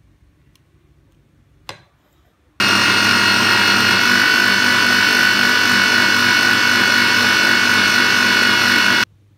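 Electric food processor motor running steadily, blending liquid cheesecake batter of cream cheese, eggs, sugar and cream until smooth. A click comes a little before the motor starts abruptly about two and a half seconds in, and the motor cuts off sharply near the end.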